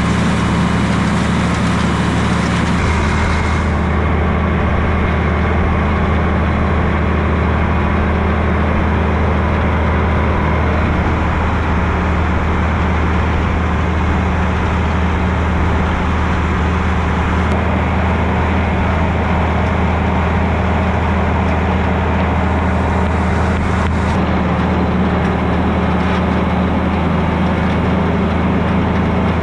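A vehicle engine running steadily at a constant speed, a low drone with no change in pace.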